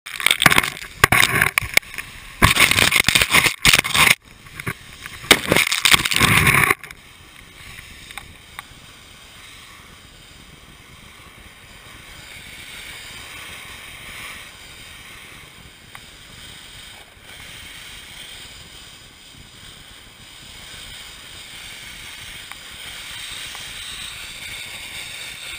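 Volcano board sliding down a slope of loose volcanic gravel: a steady, gritty scraping hiss, with loud, rough bursts for about the first seven seconds.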